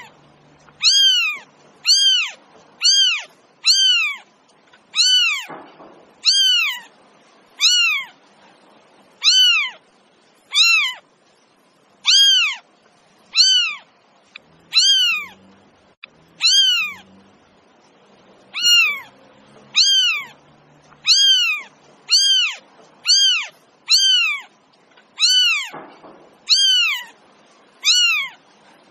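A cat meowing over and over: short, high-pitched meows about once a second, each rising and then falling in pitch.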